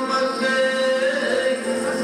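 Live music accompanying a dance: long held, slowly gliding notes with a singing voice.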